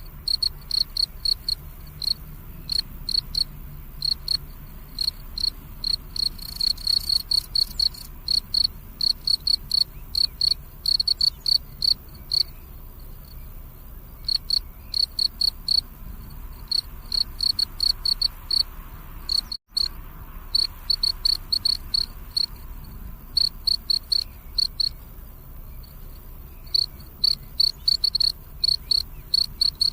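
Crickets chirping: a steady train of short, high-pitched chirps at about two to three a second, broken by a few short pauses. This is the calling song of male crickets.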